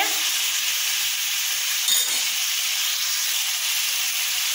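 Raw chicken pieces and sliced onions frying in oil in a stainless steel pan, a steady sizzling hiss as the salted chicken starts to give off its water. One brief click about two seconds in.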